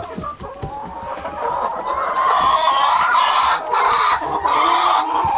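Chickens clucking and calling, rising into a steady stream of drawn-out calls from about a second and a half in.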